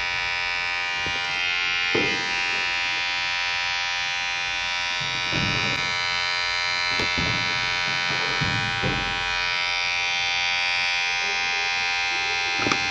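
Electric hair clipper running with a steady vibrating buzz, with a few short, rougher rasps breaking in at irregular moments.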